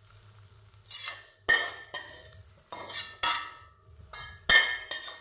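Metal utensil knocking and scraping against a metal cooking pot of lentil-and-rice koshari, several sharp clanks with a ringing tone.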